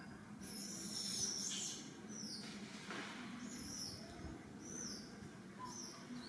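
Newborn macaque giving a string of short, high-pitched squeaks, many falling in pitch, a few each second at first and then more spaced out.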